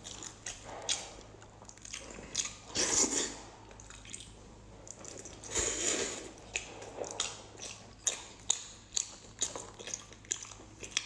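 Close-mic wet chewing and biting of soft, gelatinous pork skin rolls in spicy sauce: many small sticky mouth clicks and squelches, with two louder bites or slurps about three and six seconds in.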